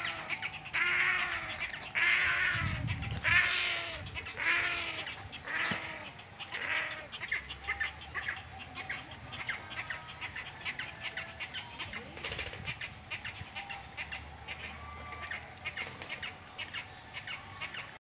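Large waterbirds in an aviary calling: a series of short calls that rise and fall in pitch, about one a second for the first six seconds, then a long run of quick dry clicks.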